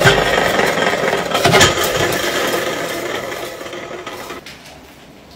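Aluminium beer cans rattling and rubbing against one another as they are handled, a dense clatter that stops suddenly a little over four seconds in.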